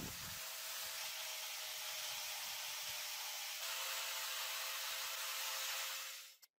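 Power tool spinning an orange sanding disc against a steel drill chuck: a steady abrasive hiss of metal being sanded, over a thin motor whine that shifts slightly about three and a half seconds in. It stops abruptly near the end.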